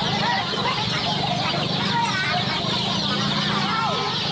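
Chickens clucking, with many short overlapping calls, over a steady low hum.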